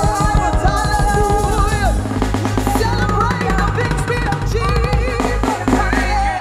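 Live gospel worship music: a woman sings over a band, with a drum kit playing rapid strokes for the first couple of seconds under a steady bass line.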